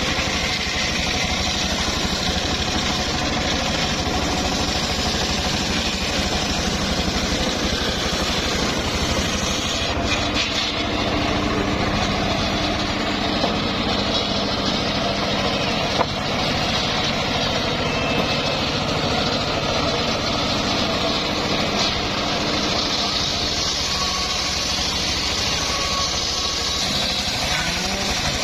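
Engine of a homemade circular sawmill running steadily, with a single sharp knock a little past halfway.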